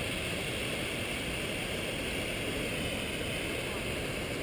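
Steady rushing noise of falling water from mountain waterfalls, with wind buffeting the microphone.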